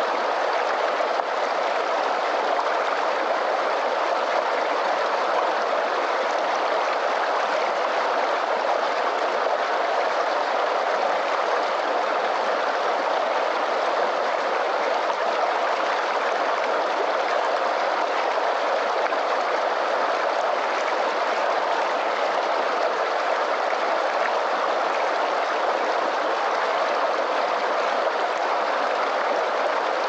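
Fast, shallow mountain stream rushing over rocks: a steady, unbroken rush of water.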